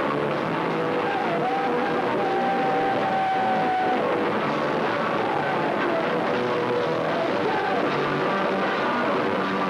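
Live rock band playing loud and noisy, with electric guitar, bass and drums smeared together by an overloaded recording. A long high note is held for about two seconds near the middle.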